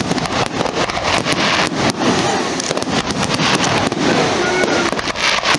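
Fireworks going off in a rapid, dense run of overlapping bangs and crackles.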